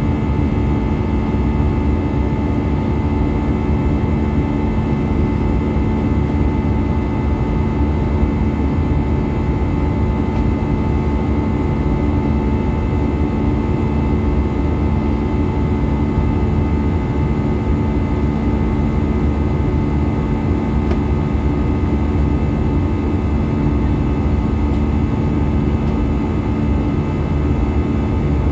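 Airbus A320-214's CFM56 turbofan engines and rushing airflow heard inside the passenger cabin in flight: a steady, even drone with a low rumble and a few constant whining tones on top, unchanging throughout.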